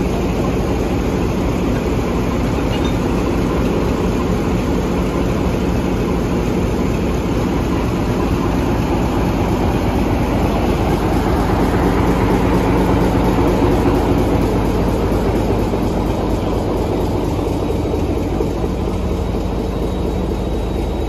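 Diesel locomotive engine idling with a steady low hum, swelling slightly about two-thirds of the way through.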